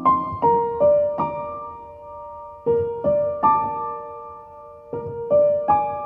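Background piano music: a slow melody of single notes, each ringing and fading before the next.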